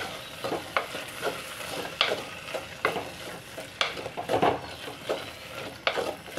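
Wooden spatula stirring and scraping cooked amaranth greens and grated coconut in a clay pot, with irregular knocks and scrapes against the pot's sides over a steady sizzling hiss.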